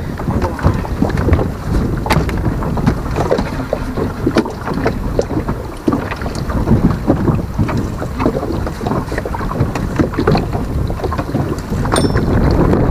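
Choppy sea water slapping and lapping just below, with gusty wind buffeting the microphone in a steady low rumble and frequent short splashes and knocks.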